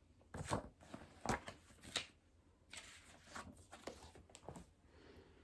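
A picture book being handled during a read-aloud: a few short paper rustles in the first two seconds, then softer rustling and handling noise.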